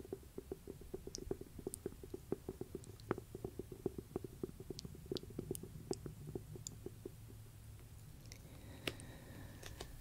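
Fingertips tapping rapidly on the cover of an old cloth-bound hardcover book held close to a binaural microphone, about eight to ten taps a second, thinning to a few scattered taps after about seven seconds.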